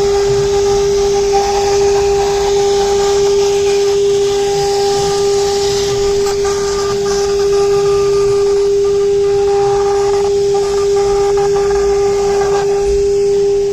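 A 6 kW air-cooled CNC router spindle running at constant speed: a loud, steady high whine at one pitch with a hiss over it.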